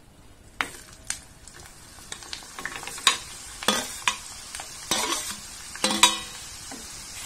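Par-fried potato fingers going back into hot oil for their second fry, the oil sizzling louder as more go in. A perforated steel skimming spoon clinks sharply against the steel plate and pan about eight times as it scoops them over.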